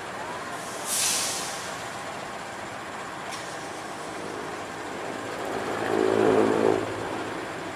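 Diesel locomotive running steadily, with a short sharp hiss of released air about a second in and a fainter hiss a couple of seconds later. Near the end, a low pitched tone swells for about a second and fades.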